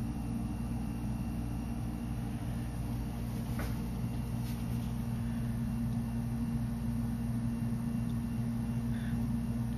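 Steady low hum made of several tones, with a faint tick or two partway through.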